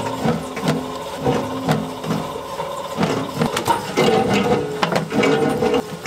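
SINMAG spiral dough mixer running, its hook kneading pretzel dough in the steel bowl. A steady motor hum carries a regular knock and slap of dough about twice a second, with scattered clicks.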